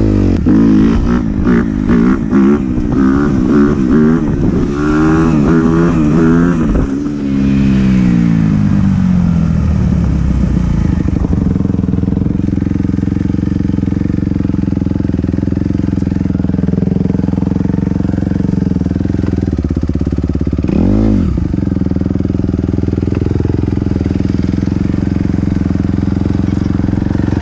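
Dirt bike engine revving hard, its pitch swinging up and down over the first several seconds, then settling into a steady drone. About 21 seconds in there is one short, quick rev.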